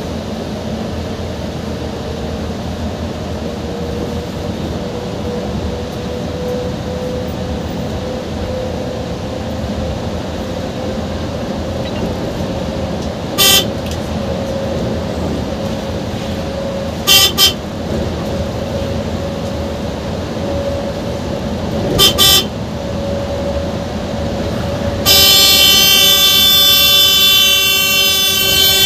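Bus engine and road noise heard from inside the driver's cab, steady, with a faint whine slowly rising in pitch. A horn breaks in with a short toot, then two quick double toots, and near the end a long held blast, the loudest sound here.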